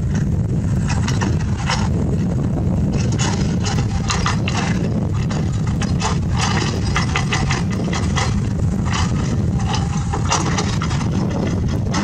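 CAT 320D excavator's diesel engine running steadily under load, with irregular clatter and scraping as the steel bucket digs through broken rock.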